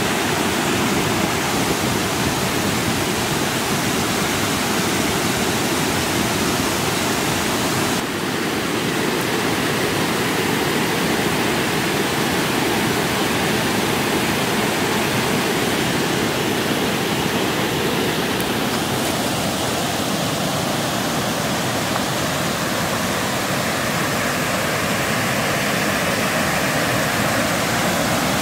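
River water spilling over a low weir: a steady rush of falling water.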